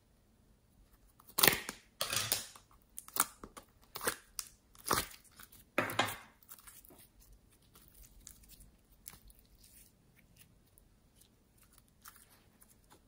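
Hands peeling and squeezing slime-coated pieces out of a glass dish: a run of sharp, sticky crackles and tearing snaps in the first half, then fainter clicks.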